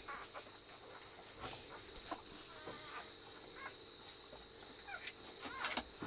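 Newborn husky puppies squeaking and whimpering: many short, high squeaks that rise and fall in pitch, with a couple of brief rustles, one about a second and a half in and one near the end.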